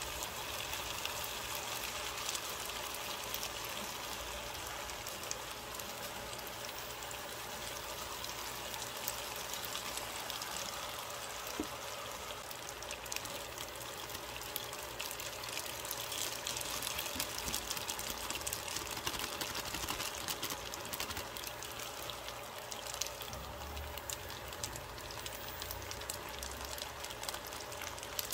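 Shrimp and fettuccine sizzling steadily in a frying pan, a fine crackle.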